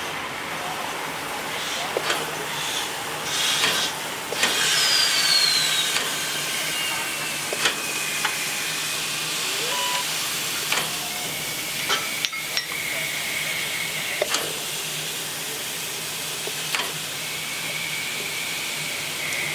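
Class 64 steam tank locomotive 64 518 hissing steam, with scattered sharp clanks and knocks and a squeal that falls in pitch a few seconds in.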